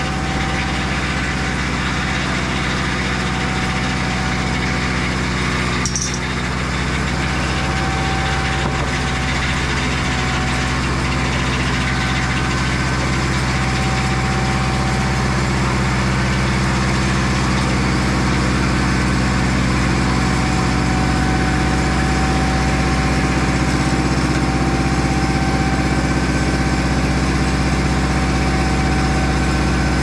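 Mobile Dimension sawmill's Volkswagen air-cooled flat-four engine, the same engine as in a VW Beetle, running steadily.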